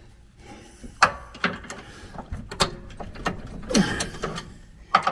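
Wrench clicking and clinking against metal as a nut is worked off a bolt on a riding mower's steering linkage: irregular sharp ticks about a second apart.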